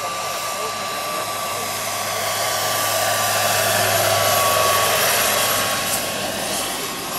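Large-scale RC AW139 model helicopter's turbine engine whining steadily over the rotor noise, growing louder as the model passes close. About six seconds in a brief sharp crack is heard as the whine eases, at the point where the model's turbine broke apart in flight.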